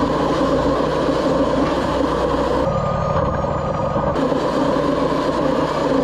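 Wood-Mizer LT40 portable bandsaw mill running steadily, its engine and band blade sawing a pine cant. The top end goes duller for a second or so about three seconds in.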